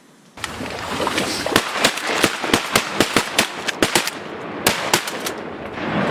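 Several shotguns firing at geese together: a rapid, overlapping string of about twenty shots that starts suddenly about half a second in and thins out toward the end.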